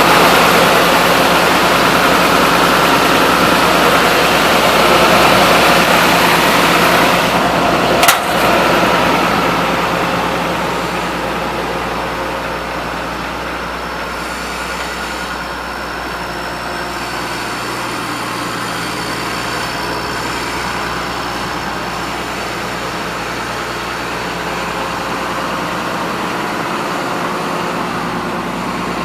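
Komatsu PC200-8MO excavator's diesel engine running, louder at first. There is a sharp click about eight seconds in, after which the engine eases down to a quieter, steady idle.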